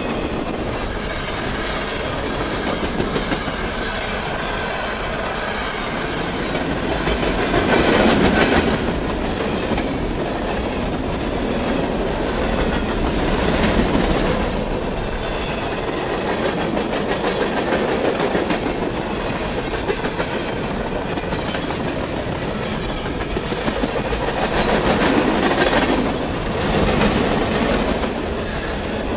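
Freight cars rolling past close by: a steady rumble of steel wheels on rail with wheels clacking over the rail joints. It swells louder a few times, most strongly about eight seconds in and again near the end.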